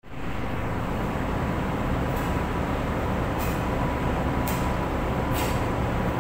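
State Railway of Thailand passenger carriages rolling slowly along the platform: a steady low rumble with a faint hum, broken by four short high hisses about a second apart.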